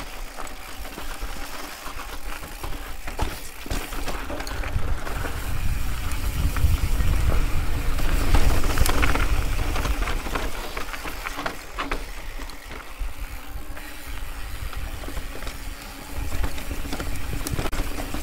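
Mountain bike riding down a rocky trail: wind buffeting the microphone, with scattered knocks and rattles from the tyres and bike over rock.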